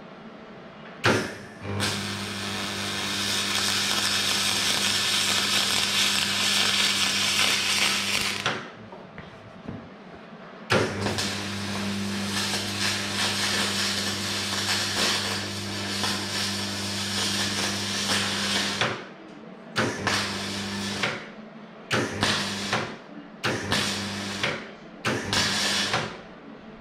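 Welder arc running on aluminium frame profiles: two long welds of about six and eight seconds, then four short bursts, each a steady electrical hum under a hiss.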